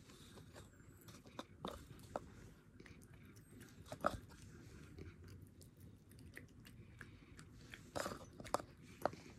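A cat chewing a mouthful of raw horse meat, with short wet clicks and smacks of its jaws. The loudest click comes about four seconds in, with a few more close together near the end.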